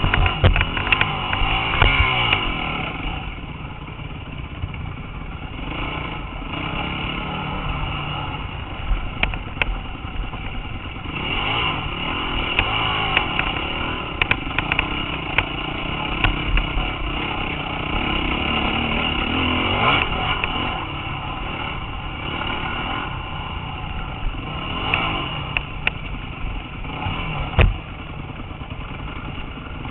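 Dirt bike engine revving up and down over and over as it is ridden over rough trail, with the bike clattering over the bumps. A sharp knock comes near the end.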